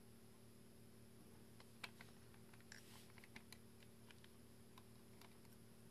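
Faint small clicks and ticks of a precision eyeglass screwdriver working the tiny screws under the focus ring of a Pentax DA 18-55mm WR lens, with a sharper click about two seconds in and a quick cluster of clicks around three seconds.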